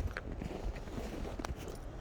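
Footsteps in snow, a few soft scattered steps over a low steady rumble.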